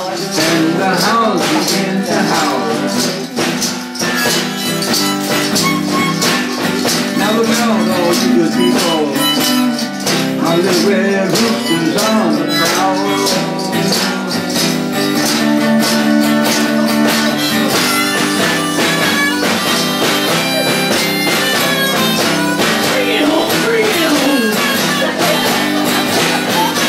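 Live acoustic blues: acoustic guitar with a tambourine keeping a steady beat.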